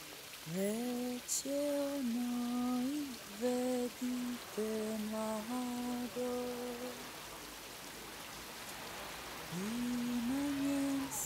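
A woman's voice humming a slow melody without words, long held notes joined by slides, stopping for about two seconds near the middle and starting again near the end. Steady splashing of fountain water runs underneath.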